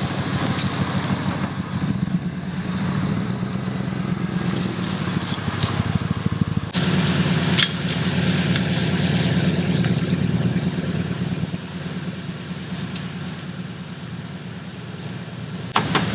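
A vehicle engine running steadily, with an abrupt change in level and tone about seven seconds in and again near the end.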